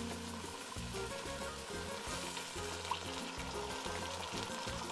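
Onion and jalapeño frying in olive oil in a pot, sizzling steadily as broth is poured in slowly. Soft background music plays underneath.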